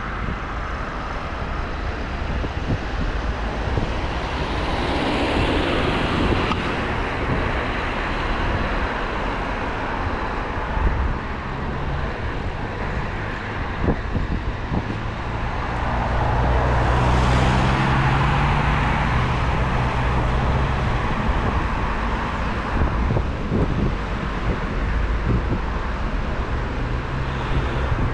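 City street traffic: vehicles passing one after another, with one engine passing close and loudest a little past halfway.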